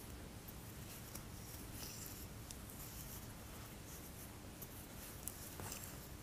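Wooden knitting needles working pink yarn: faint, irregular small clicks and scratches as the needles slide and tap and the yarn is drawn through, over a low steady hum.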